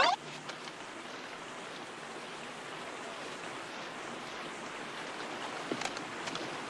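A steady, even hiss of background noise with no clear pitch, and a faint click or two near the end.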